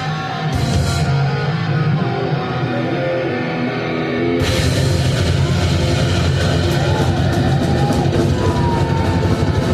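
Heavy metal band playing live, loud and dense; about four and a half seconds in, the sound becomes fuller and brighter as more of the band comes in.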